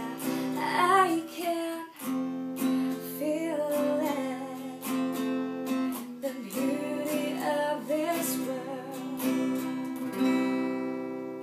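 Woman singing over a strummed acoustic guitar, closing with a last chord about ten seconds in that is left to ring and fade.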